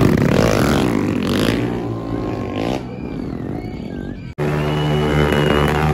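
Several stunt motorcycles revving and pulling away, their engines fading as they ride off. About four seconds in the sound cuts off abruptly and music with steady held notes takes over.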